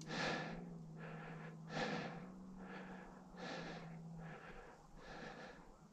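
A man's breathing close to the microphone, one breath about every second and a half, with a faint steady low hum underneath for the first four seconds.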